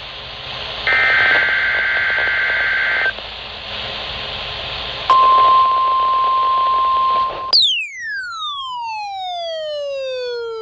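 NOAA Weather Radio alert test heard through a receiver with steady static. First a burst of EAS/SAME header data, a rasping two-tone warble, then after a short pause the single steady 1050 Hz NWS warning alarm tone. The tone cuts off about two-thirds of the way in as a clean electronic tone sweeps steadily down in pitch.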